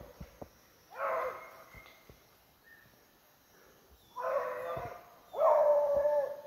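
Hunting hounds baying on a paca's trail: three long, drawn-out calls, about a second in, around four seconds in, and the loudest just after five seconds.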